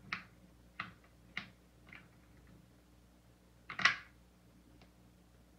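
Soft pastel sticks clicking against each other and the wooden tray as a stick is picked out: a few light clicks in the first two seconds, then a louder clatter about four seconds in.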